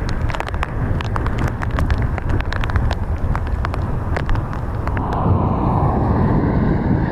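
Wind buffeting the microphone outdoors, a steady low rumble, with sharp irregular clicks through the first five seconds. The clicks stop about five seconds in and the rumble carries on.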